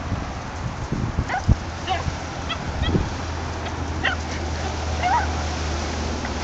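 Small dogs yipping in play, about six short high yips spread over several seconds, over a steady low wind rumble on the microphone.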